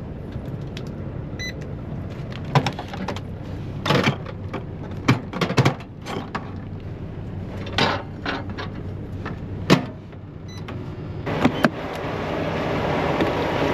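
Knocks, clicks and rustling from handling things and doors in a semi-truck's cab, over a steady low hum, with a short beep about one and a half seconds in. Near the end a louder steady rushing background comes up.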